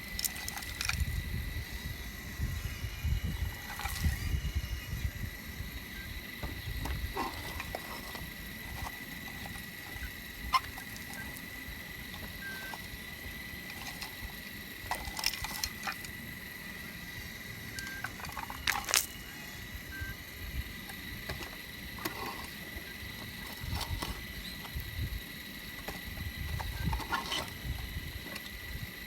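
Caterpillar digging machine working in shale: a low engine rumble that rises and falls under load, with a few sharp knocks of the bucket striking rock. A steady high-pitched whine runs underneath.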